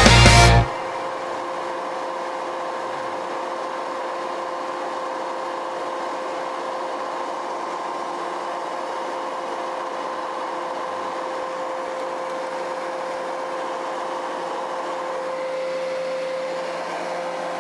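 Leaf blower running steadily with a droning motor whine, swelling slightly near the end. Rock music cuts off less than a second in.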